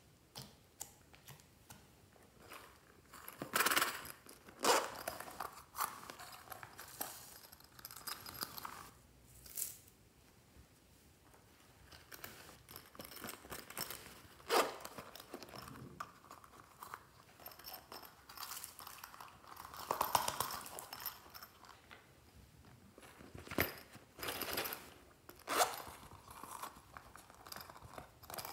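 Hands stretching and pressing glossy slime and handling small zip pouches over a glass dish: irregular sticky crackles and crinkles, with a few louder ones.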